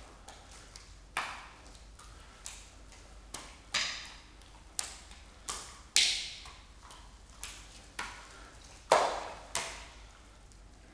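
Wet smacks of raw hearts slapping into hands as they are juggled: a run of irregular sharp slaps, each dying away quickly, the two loudest past the middle and near the end.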